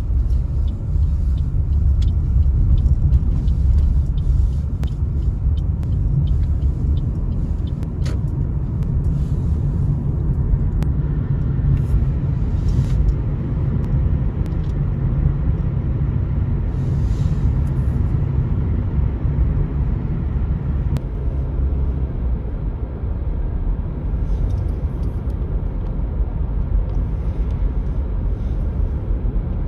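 Steady low rumble of a motor vehicle running close to the microphone, with brief faint hissing twice near the middle.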